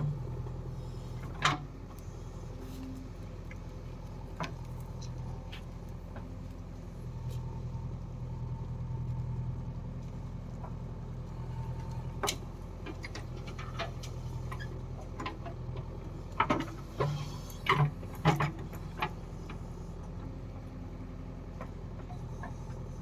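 A diesel farm machine's engine running steadily, with sharp metallic clanks and knocks here and there and a cluster of them near the end.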